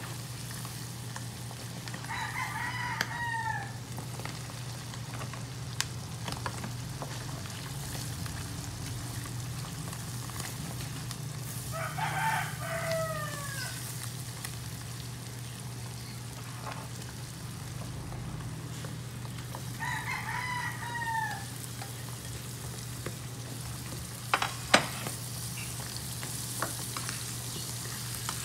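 A rooster crowing three times, each crow about a second and a half long and falling at the end, over food frying in a stainless-steel wok and a steady low hum. A few sharp clicks of the spatula against the pan, two of them close together near the end.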